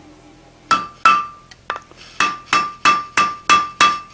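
Blacksmith's hammer striking a red-hot iron bar on an anvil, forging a cabinet-handle blank round. There are about nine blows, each with a short ring, settling into a steady rhythm of roughly three a second.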